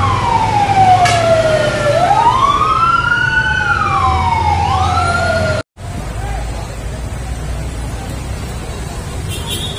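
Fire truck sirens wailing, each sweep rising quickly and falling slowly, with more than one siren overlapping. They cut off suddenly a little past halfway, followed by steady street noise with a low engine rumble.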